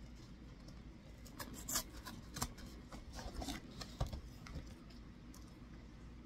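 Faint, scattered clicks and rustles of a plastic yoghurt cup being handled and opened.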